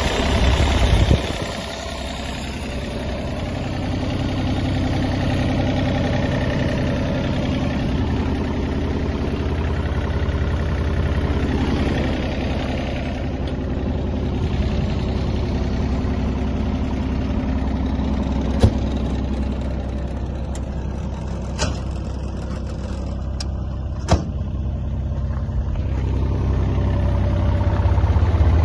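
Deere 35G mini excavator's diesel engine running steadily at idle, getting louder near the end. A few sharp clicks or knocks are heard in the second half.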